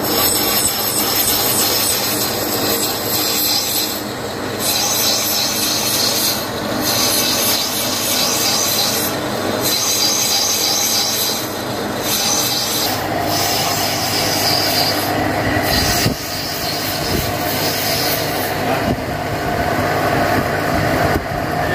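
Metal lathe cutting steel: the tool bit scrapes and squeals steadily against the turning workpiece, the high squeal dropping out briefly several times. The metal is very hard.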